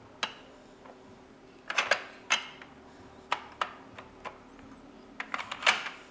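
Plastic vehicle pieces of a sliding-block traffic puzzle clacking against each other and the grid tray as they are slid and lifted. About a dozen sharp, irregular clicks, bunched in quick clusters about two seconds in and near the end.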